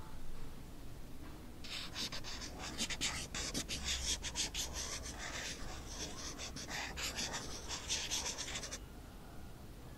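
Marker pen writing on paper: a quick run of scratchy strokes that starts about two seconds in and stops abruptly near the end.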